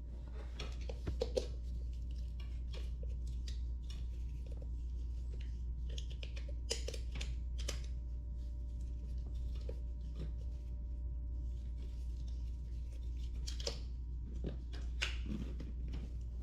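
Scattered light clicks and taps of small metal parts and tools being handled during a scooter tire change, over a steady low hum.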